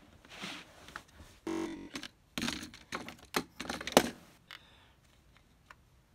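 Plastic Lego bricks being handled: sharp clicks and short rattles as pieces are picked up, pressed together and set down, thinning out in the last second or two.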